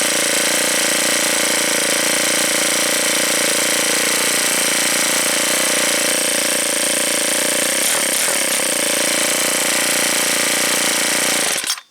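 Ryobi S430 four-cycle string trimmer engine running steadily, then shut off near the end, the sound cutting out abruptly.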